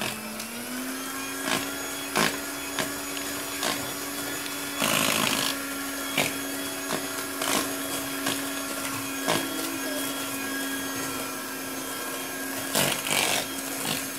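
Electric hand mixer running steadily, its beaters whisking eggs and sugar in a bowl. The motor picks up speed slightly just after the start, and the beaters tick and scrape against the bowl now and then.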